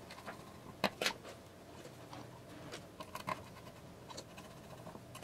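Faint scattered clicks and scrapes of a small screwdriver working the screw of a plastic screw terminal block, clamping a jumper wire into a stepper motor driver, with the sharpest clicks about a second in.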